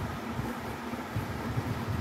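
Steady low background rumble with irregular soft low bumps, stronger in the second half.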